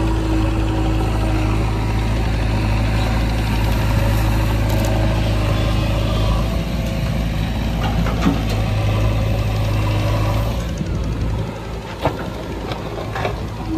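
JCB 3DX backhoe loader's diesel engine running steadily as the backhoe digs soil. About eleven seconds in the engine note eases off, and a few sharp knocks follow near the end.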